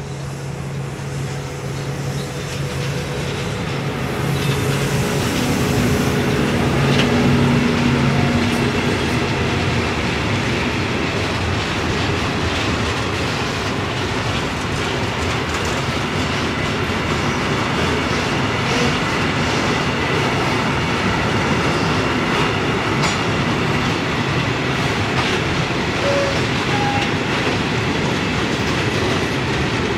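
A class 183 electric locomotive passing with a steady low hum, followed by a freight train of loaded Eas open wagons rolling by, their wheels clattering rhythmically over the rail joints. The sound grows louder over the first few seconds and the hum gives way to the wagons' steady rumble after about eight seconds.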